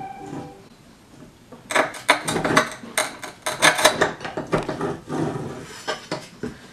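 Manual rail tile cutter's scoring wheel being pushed along a porcelain subway tile, a run of gritty scrapes and clicks starting a couple of seconds in.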